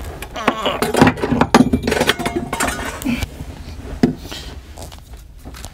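Irregular clinking and knocking of tools and metal parts being handled, busiest in the first few seconds and then quieter.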